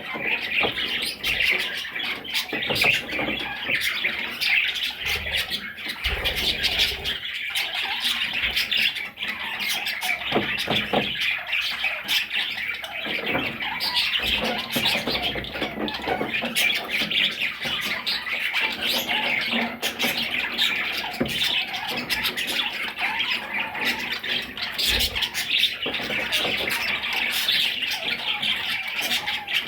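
A group of budgerigars chattering continuously: dense warbling with frequent short squawks and chirps.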